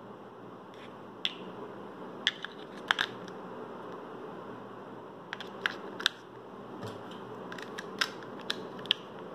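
Sharp plastic clicks and taps as AAA batteries are pushed into a Zoom H1n handheld recorder's battery compartment and the plastic battery cover is fitted back on, about ten clicks in all, over a steady background hiss.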